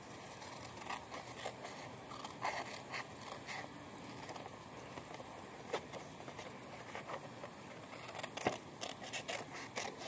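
Small pink-handled scissors cutting through blue paper: faint, irregular snips with the rustle of the sheet being turned, a few more snips close together near the end.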